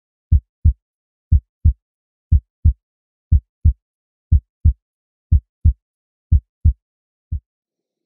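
Heartbeat sound effect: low, paired lub-dub thumps about once a second, seven beats in all, with a single fainter thump near the end.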